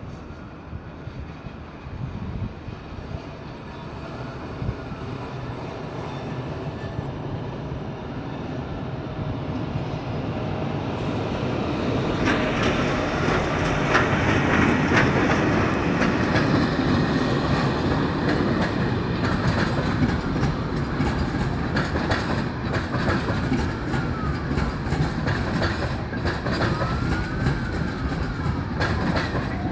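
A ČD class 242 electric locomotive hauling a passenger train passes close by. Its rumble grows louder for about the first dozen seconds, then holds steady with clickety-clack from the wheels over rail joints and points. A few brief wheel squeals come near the end.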